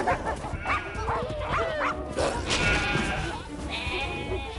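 Sheep bleating several times in distress as wolves chase and catch them, with a dog-like bark or yelp among the calls.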